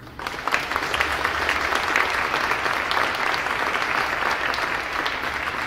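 Audience applauding: a crowd of many hands clapping, breaking out suddenly and holding steady.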